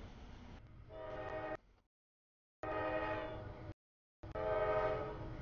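CSX freight locomotive's air horn sounding three blasts for a grade crossing as the train approaches, each a chord of several steady tones. The first blast is short and fainter; the next two last about a second each and are louder. A low rumble comes before the first blast.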